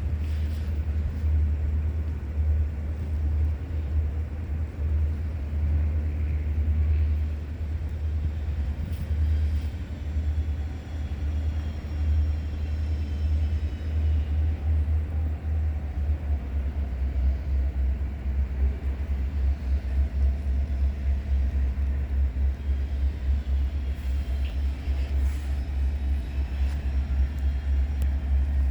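Cars of a long Great Lakes Central train rolling past: a steady low rumble of wheels on rail, with faint thin squeals now and then.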